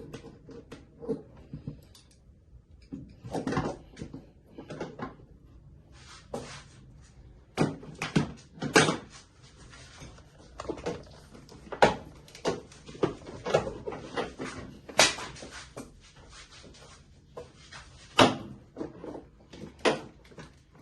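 Irregular clicks, knocks and clunks of hand tools and metal parts being handled while parts of a VW T5 bus engine bay are unscrewed and moved, with a few sharper knocks scattered through.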